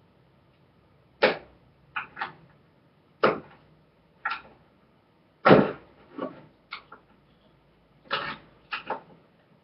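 About a dozen sharp knocks and clanks at irregular intervals, each dying away quickly: a metal paint can and tools being handled on a tabletop while its lid is tried open without a screwdriver.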